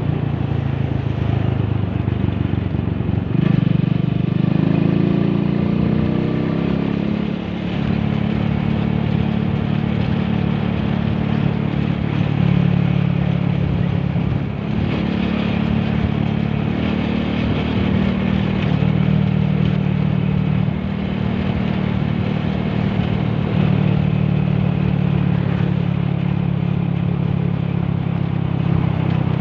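Small motor scooter's engine running steadily while under way, with road noise. The level dips briefly a few times, as the throttle eases.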